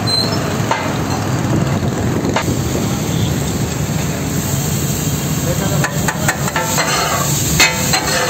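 Fish katakat being cooked on a large flat tawa griddle: the fish sizzles as a metal spatula stirs and chops it. Several sharp metal clacks on the griddle come in quick succession near the end.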